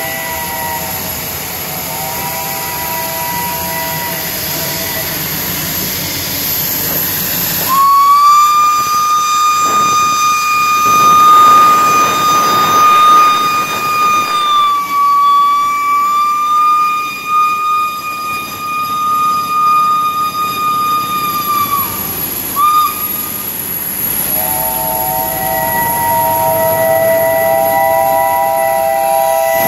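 Whistles of State Railway of Thailand steam locomotives 850 and 824 sounding for departure. It opens with a lower chord of several steady notes. About eight seconds in, a single high whistle is held for about fourteen seconds and is followed by a short toot. The chord returns for the last five seconds.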